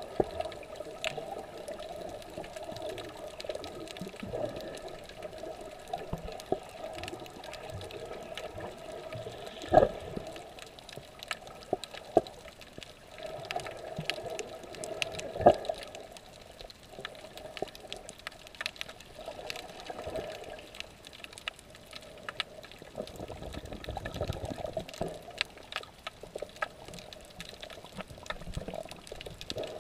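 Muffled underwater sound picked up by a submerged camera: a steady swishing of water with scattered clicks, and two louder knocks about ten and fifteen seconds in.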